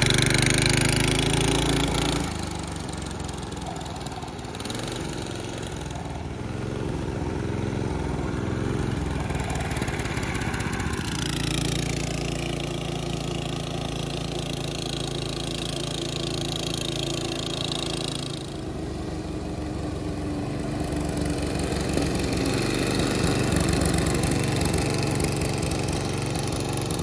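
Small gasoline engine of a vintage go-kart running as the kart is driven, its pitch rising and falling with the throttle. The sound changes abruptly a few times.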